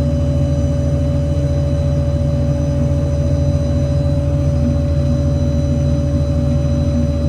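Ford 6.7 L diesel running with the PTO engaged, driving the hydraulic system set to the air compressor: a steady low hum with a constant whine.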